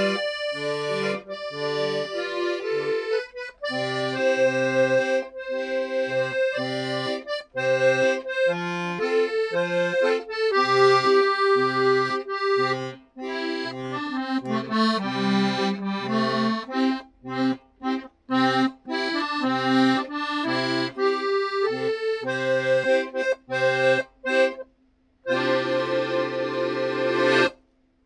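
HyunDai piano accordion playing a trot song melody on the right-hand keys over left-hand bass notes, then, after a brief pause, one long held final chord that stops just before the end.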